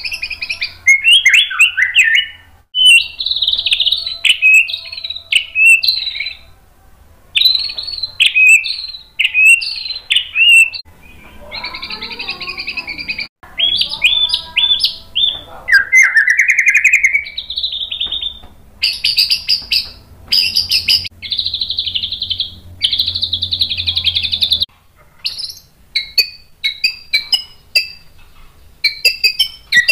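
White-rumped shama singing a long, loud, varied song of whistled and gliding phrases. In the second half come several sustained runs of rapid repeated notes.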